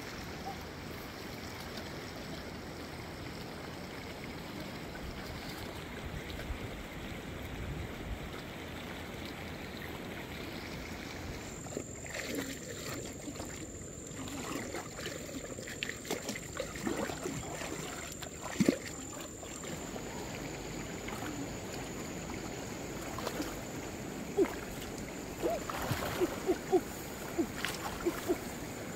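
Shallow muddy stream water sloshing as a person wades and works a woven bamboo basket fish trap and gropes in the mud by hand. Short sharp splashes start about twelve seconds in, with one loud splash past the middle and a quick run of splashes near the end. A thin, steady high whine joins about a third of the way in.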